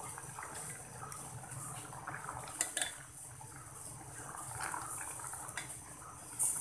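Metal spatula scraping and clinking against a metal cooking pot as thick chicken curry is stirred, with wet sloshing of the gravy. A couple of louder knocks come about two and a half seconds in and again near the end.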